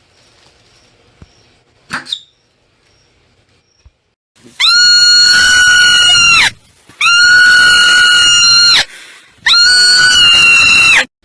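Marmot giving three long, loud screaming calls, each held at one steady pitch for nearly two seconds, after a short chirp about two seconds in.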